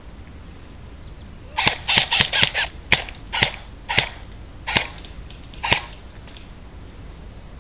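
Airsoft gun firing single shots: about ten sharp cracks over some four seconds, quick at first and then spacing out.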